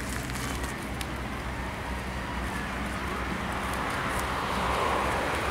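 Outdoor ambience: a low steady hum under an even rushing noise that swells toward the end.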